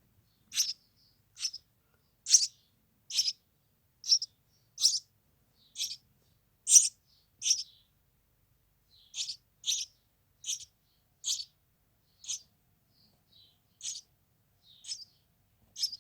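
A six-day-old hand-reared nestling songbird cheeping: short, high, repeated calls, one to two a second, with a brief pause about halfway. These are the begging calls of a chick being hand-fed.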